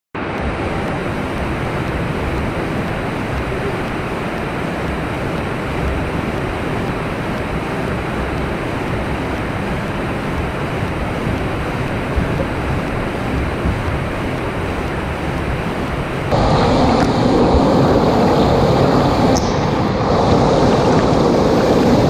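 Steady rush of a small waterfall and rapids pouring over rocks. About sixteen seconds in the sound suddenly gets louder and fuller, as heard from right down in the whitewater.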